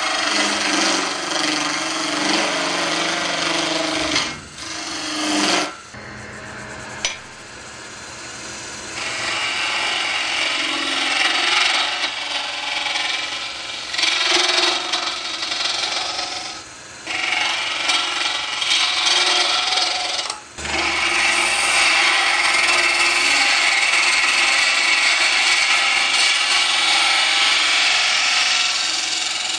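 Bowl gouge cutting an epoxy resin bowl blank spinning on a Coronet Herald wood lathe: a harsh scraping hiss as the shavings come off. It goes in a run of cuts broken by short pauses where the tool lifts off, then one long unbroken cut over the last third.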